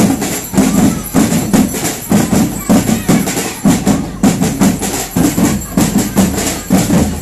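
Percussion-heavy procession music with a steady drum beat, about two beats a second, with rattling percussion over it.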